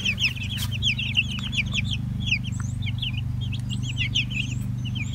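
A flock of young meat chicks peeping, many short falling peeps overlapping several times a second, over a steady low hum.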